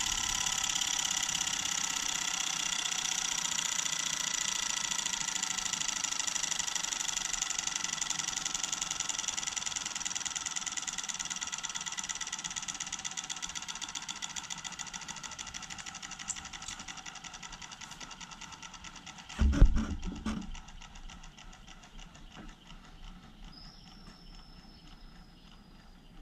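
3D-printed commutator-triggered IGBT pulse motor running with a rapid pulsing whine that slowly falls in pitch and fades as it slows down, its capacitor supply running down. About twenty seconds in there is a loud short thump of handling, after which the motor is barely heard.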